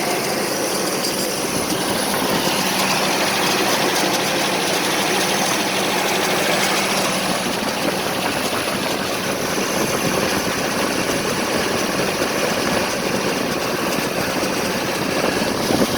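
1984 Nissan 720 4x4 pickup's engine idling roughly, running steadily without revving.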